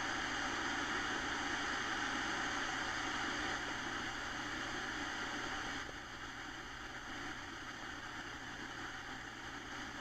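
Steady rushing hiss of flowing river water, dropping in level about six seconds in.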